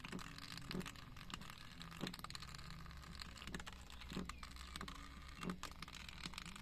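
Small test speaker faintly playing the subwoofer output of a song from a subwoofer amplifier board fitted with a new TL074 IC: muffled bass thumps about every two-thirds of a second over a low steady hum, a sign the low-pass sub section is now working.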